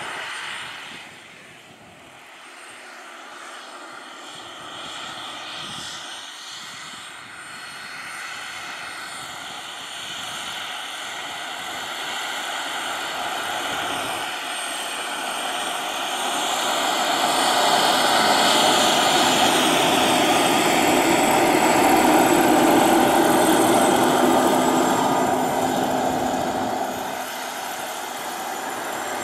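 Radio-controlled scale Kamov Ka-32 model helicopter flying, its engine and coaxial rotors growing steadily louder as it comes in close. Near the end it drops to a lower steady running sound as it sets down on the runway.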